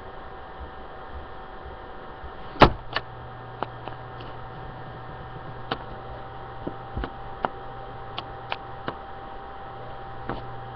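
Irregular sharp knocks and clicks, about ten of them, over a steady electrical hum. The loudest knock comes about two and a half seconds in, and a deeper hum starts with it.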